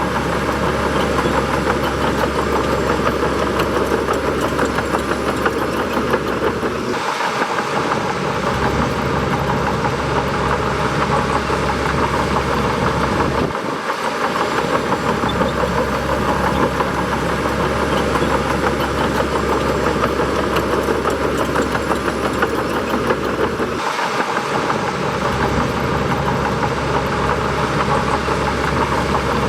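Bulldozer's heavy diesel engine running steadily while it works, with a strong low hum and clattering mechanical noise. The sound shifts abruptly three times.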